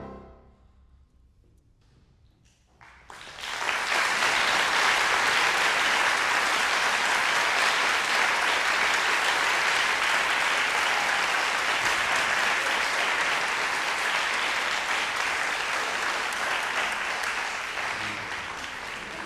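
The last note of saxophone and piano dies away into about three seconds of near quiet. Then the audience breaks into applause that keeps up steadily and thins slightly near the end.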